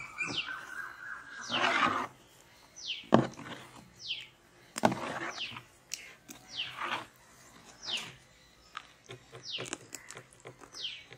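A steel ladle stirring thick milkshake in a large aluminium basin, knocking and scraping against the metal every second or two. A bird repeats a short falling whistle about once a second.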